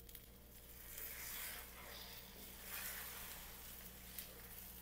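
Eggs and sliced sausage frying faintly in a pan while a wooden spatula stirs and scrapes through them, the sizzle swelling slightly with each stir.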